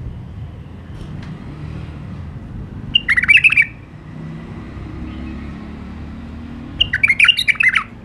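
White-eared bulbul singing two short phrases of quick warbled notes, about three seconds apart, over a steady low rumble.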